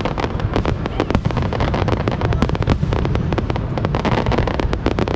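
Fireworks display going off in a dense, continuous barrage: many sharp cracks and pops a second over a steady low rumble of bursts.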